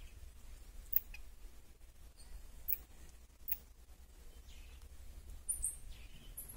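Common marmosets giving short, very high-pitched squeaks, a few spaced out and then a small cluster near the end.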